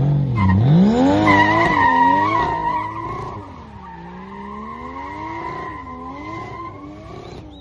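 Toyota 2JZ inline-six swapped into a BMW E30 325i, revved hard with the pitch rising and falling repeatedly, over a steady tyre squeal as the rear wheels spin in a burnout. The sound drops off after about three seconds as the car pulls away, the squeal and revving carrying on more faintly.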